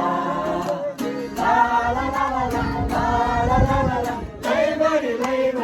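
Several voices singing a song together in long phrases, with short breaks about a second in and again near the end.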